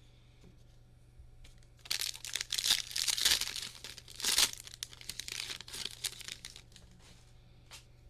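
Foil wrapper of a Bowman Draft Jumbo baseball card pack being torn open and crinkled, a dense crackling that starts about two seconds in, peaks in the middle and fades out.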